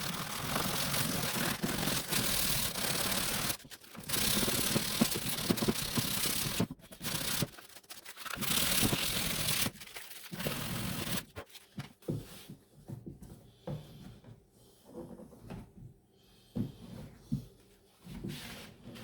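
Hand sanding with 150-grit sandpaper on the inside of a personal watercraft's damaged hull: steady scratchy rubbing in several long passes of a few seconds each. It stops about eleven seconds in, leaving faint scattered taps and handling knocks.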